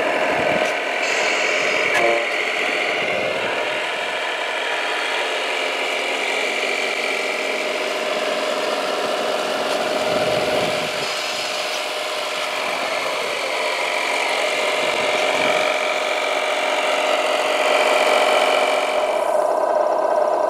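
Electric motors and gearboxes of radio-controlled model vehicles whining steadily, the pitch drifting a little with the throttle.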